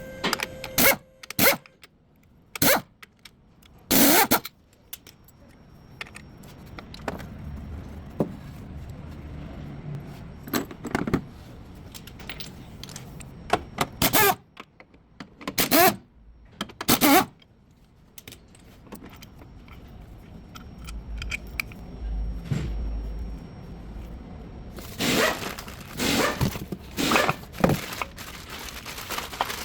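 Metal tools and car parts being handled: irregular short scrapes, clicks and clanks, some in quick clusters. A brief low rumble sounds about two-thirds of the way through.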